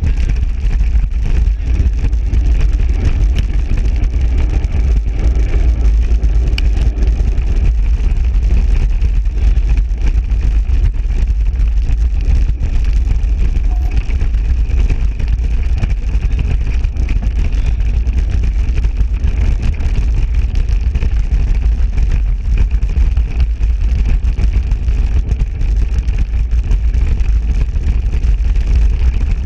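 Steady low rumble of wind buffeting the microphone, with the tyre noise of a mountain bike riding fast over an off-road track.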